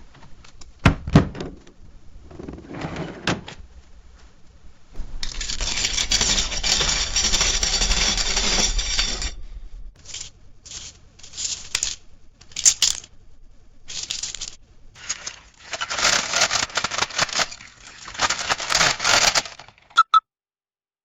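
A run of money-handling sound effects: coins jingling and paper banknotes crinkling in separate bursts, two of them lasting about four seconds each. Two short electronic beeps come near the end.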